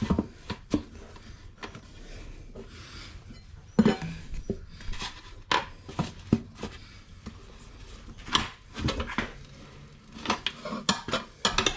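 Steel tyre levers clinking and knocking against each other and the wheel while a motorcycle tyre's bead is levered off its rim by hand. The clatter is irregular, with sharper knocks about four seconds in and again near the end.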